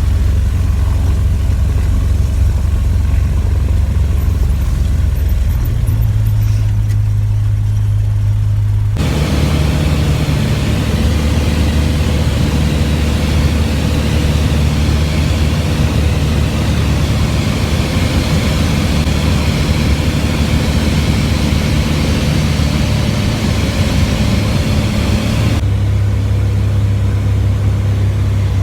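Small off-road farm vehicle's engine running steadily while driving, with road and wind noise over it. The sound changes abruptly twice, as between separate clips.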